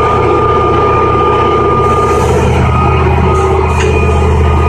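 Big diesel engine of a Cat hydraulic mining shovel running steadily, a deep even drone with a thin high whine over it that fades about halfway through.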